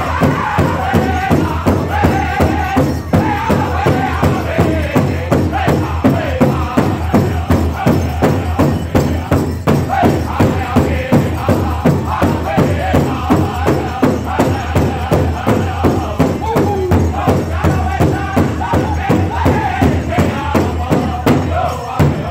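Powwow drum group: a large drum beaten in a steady rhythm, about two beats a second, with singers chanting a powwow song over it.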